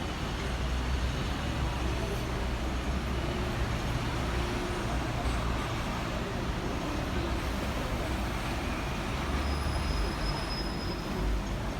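Hong Kong double-decker electric tram running along the street, heard from on board: a steady low rumble and running noise mixed with the surrounding road traffic.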